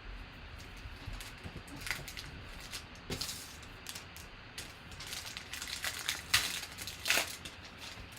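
Foil trading-card pack wrapper crinkling as it is torn open, with cards being handled. It makes a run of short, uneven crackles, busiest and loudest in the second half.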